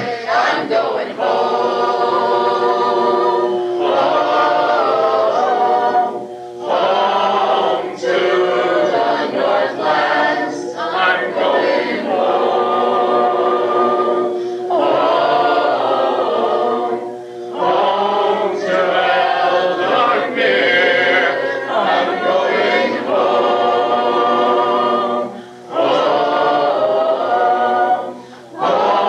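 A choir singing a song in harmony, in long phrases with short breaks between them.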